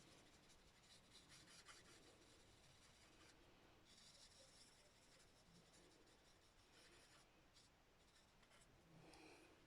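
Faint scratching of an alcohol marker (Stampin' Blends) being stroked across cardstock, many short strokes colouring in a stamped image.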